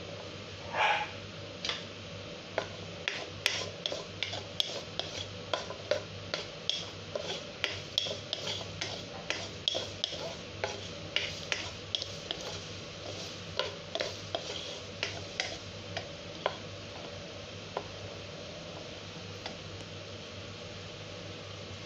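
Wooden spatula tapping and scraping in a non-stick wok as garlic cloves fry in a little oil with a faint sizzle, the garlic starting to brown. A louder clatter near the start as the cloves drop into the pan, then a couple of taps a second that thin out near the end.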